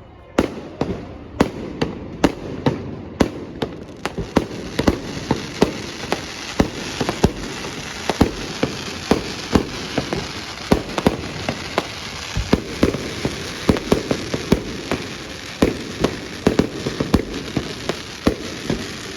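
Aerial fireworks going off in a rapid, continuous barrage. Sharp bangs come several times a second over a steady crackling hiss, starting suddenly about half a second in.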